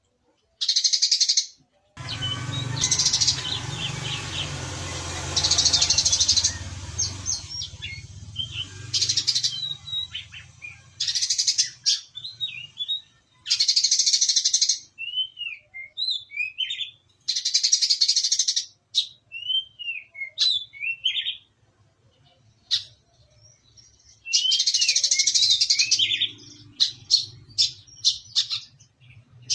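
Brown-throated sunbird (kolibri kelapa) singing: loud, rapid bursts of high, sparrow-like chatter, each about a second long, alternating with short curving whistled notes. A low hum runs under the first several seconds.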